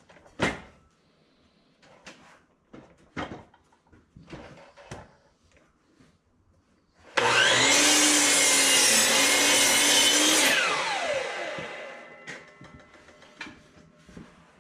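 DeWalt 12-inch mitre saw starts about seven seconds in and runs loud for about three seconds, its pitch dipping as the blade goes through a 6x6 wooden post. It then winds down with a falling whine. Light knocks and clicks from handling the wood come before and after.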